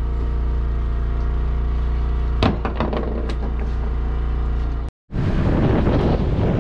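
An engine aboard the boat running with a steady hum, with a few sharp clicks or knocks near the middle. About five seconds in the sound cuts out for a moment, then comes back as wind buffeting the microphone over the rumble of the boat.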